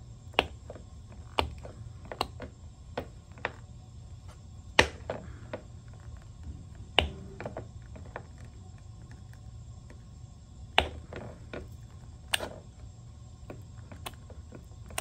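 Irregular sharp clicks and snaps from a suction cup and a thin opening tool prying a cracked iPhone display off its frame, over a steady low hum.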